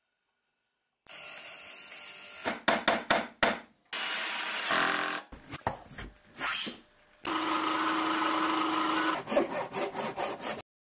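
Woodworking workshop sounds cut together in quick succession: power tools running, sawing and sharp knocks on wood. Near the end a machine runs steadily with a held hum, followed by a run of knocks, then the sound cuts off suddenly.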